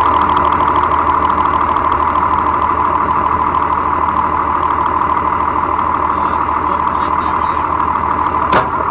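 Tractor running, heard from inside the cab: a steady engine drone with a steady whine over it. A single short knock comes near the end.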